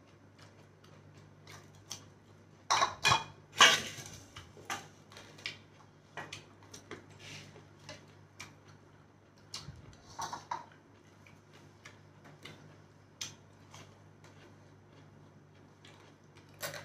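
Close-up eating sounds of two people eating with their hands: chewing and lip smacks, with fingers scraping and tapping food on plates. Louder clatters and smacks come about three seconds in and again about ten seconds in, over a faint steady low hum.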